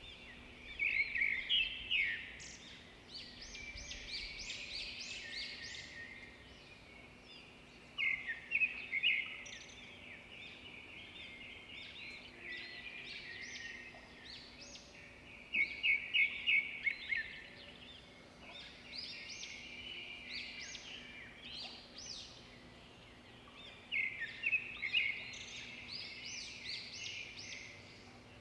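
A small songbird singing: loud phrases of quick, high chirps about every seven or eight seconds, with softer twittering between them, over a faint steady hum.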